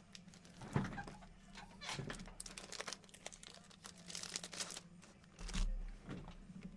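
Crinkling and rustling of packaging and card sleeves as trading cards are handled, in irregular bursts with scattered clicks, and a low thud about five and a half seconds in.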